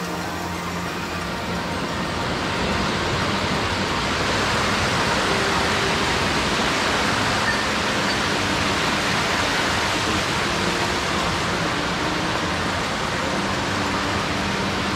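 Rushing water of a mountain headwater stream, a steady even rush that grows louder over the first few seconds and then holds.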